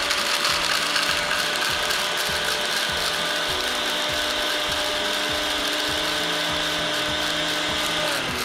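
NutriBullet personal blender running steadily, grinding hard, dried orange peel pieces into a fine orange peel dust. The motor cuts off near the end, its pitch dropping as it winds down.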